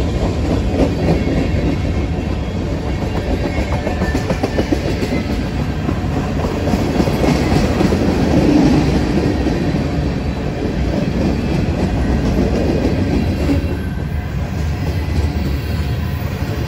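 Cars of a mixed freight train, covered hoppers and tank cars, rolling past close by: a steady rumble with the clickety-clack of wheels on the rails.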